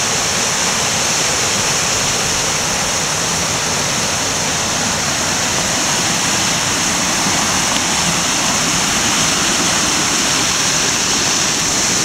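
Mountain stream rushing over granite boulders and small cascades: a steady, loud rush of water.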